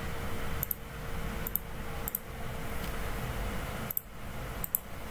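Computer mouse clicking about five times, each a short sharp double tick, over a steady background hum of room noise.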